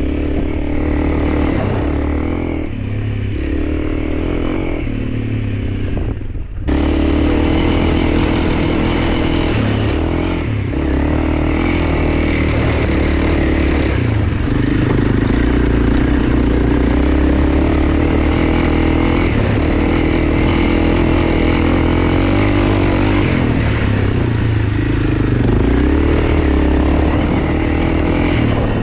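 Honda CRF300L's single-cylinder four-stroke engine running under way. The engine note cuts out briefly about six seconds in, then holds steady.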